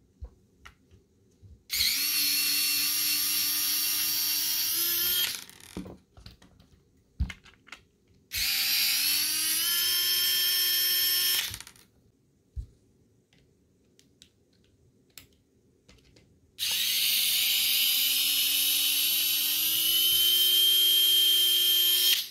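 JXTZ cordless electric screwdriver whirring in three runs of a few seconds each, the last one longest, as it spins off the 5.5mm wheel nuts of an R/C buggy and turns a chassis screw. The pitch climbs slowly through each run. Light clicks and taps come from parts being handled between the runs.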